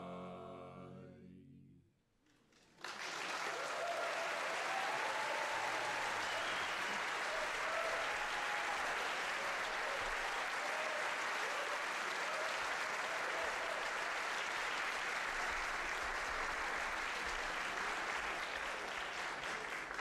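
An a cappella barbershop quartet's final held chord fading out over the first two seconds, then sustained audience applause from about three seconds in, with a few whoops early in the applause.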